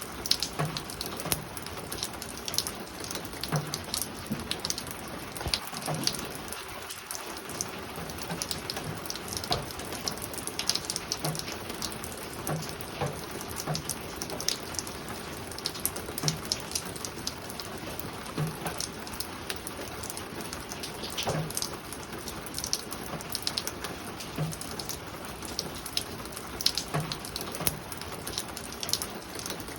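Steady spring rain falling on a roof, a constant patter with many irregular sharper drips striking close by.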